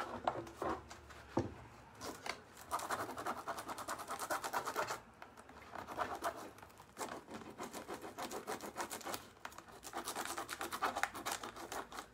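Hands rubbing and pressing a rub-on transfer down onto a textured lampshade: scratchy rubbing in several spells of quick strokes, with short pauses between them.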